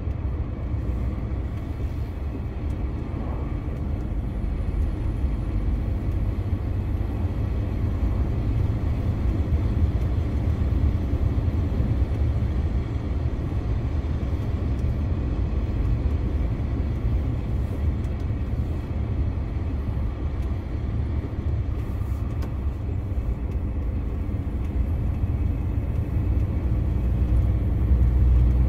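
Steady low rumble of a 2021 DAF CF 480 truck's six-cylinder diesel engine with tyre and road noise while driving along at speed, growing a little louder near the end.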